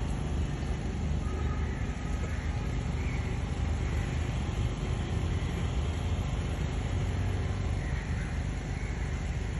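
Steady low outdoor background rumble, even throughout, with no voices or sudden sounds.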